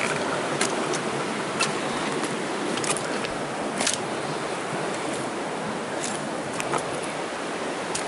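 Footsteps over sticks and stones on a forest floor, with a handful of sharp twig snaps and cracks at irregular moments, over a steady rushing noise.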